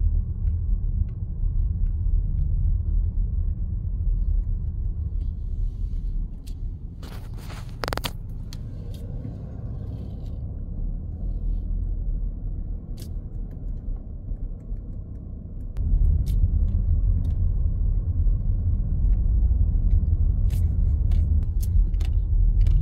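Low, steady rumble of a car driving slowly, heard from inside the cabin. The rumble eases off for several seconds in the middle and comes back up sharply about sixteen seconds in. There is a brief burst of noise about seven seconds in and a few light clicks.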